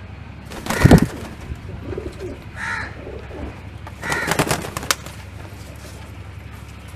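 Domestic pigeons cooing, with two louder noisy bursts about a second in and again about four seconds in, and a short higher call in between.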